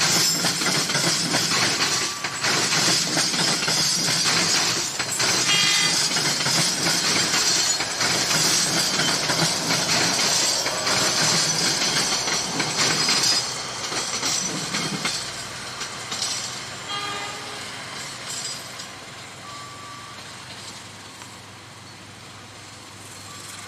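An Indonesian KAI diesel-electric locomotive hauling a passenger train, its engine running over the noise of wheels on the rails. It is loud for the first dozen or so seconds, with a couple of brief high tones, then drops and grows steadily quieter.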